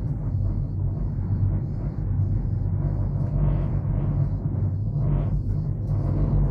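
Steady low rumble inside a moving cable car gondola: cabin and wind noise as it travels along the cable.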